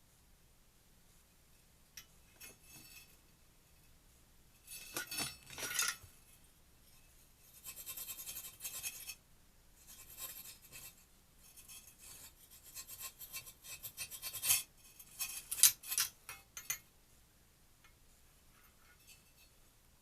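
A gas water heater's thermocouple being rubbed clean of dirt and corrosion: irregular bursts of rasping, scraping rubbing that start about five seconds in and stop a few seconds before the end.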